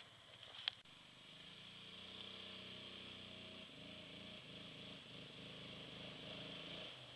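Four-wheeler (ATV) engine running in the distance as it approaches, faint and steady, coming in about a second and a half in, its note changing a little past halfway.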